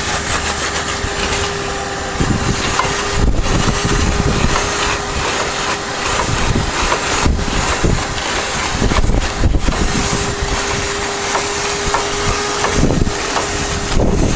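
Small car-detailing vacuum running with its nozzle against a wet evaporative cooler pad: a steady motor whine over loud rushing suction as it pulls off water and loosened calcium scale.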